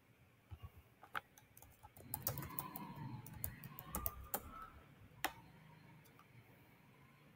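Faint computer keyboard typing: a quick run of key clicks, with one sharper click about five seconds in.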